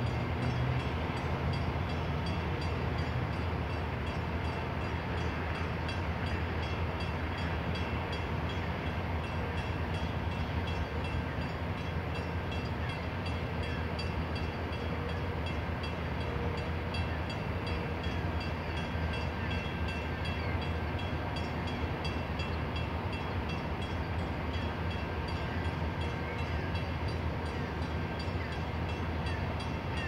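Steady low mechanical rumble with a constant hum as the bascule drawbridge leaf is lowered, blended with idling traffic waiting at the bridge.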